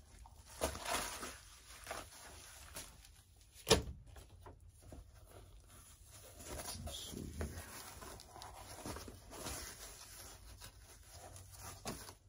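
Rustling and flapping of black fabric canopy weight bags being lifted, shaken out and folded by hand, with one sharp knock a little under four seconds in.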